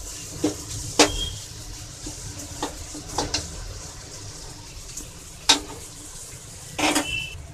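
Chicken gizzard pieces frying in masala in a metal kadai: a steady sizzle, with a metal spoon scraping and clinking against the pan about five times as they are stirred while the masala dries out.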